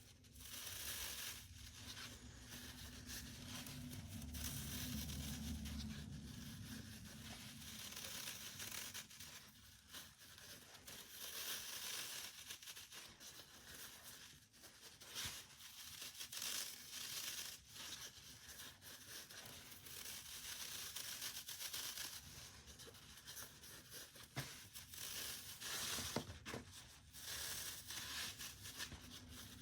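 Fabric belt sleeve of a holster carrier being handled and folded back on itself: irregular rustling and ripping sounds of fabric and hook-and-loop, coming and going throughout.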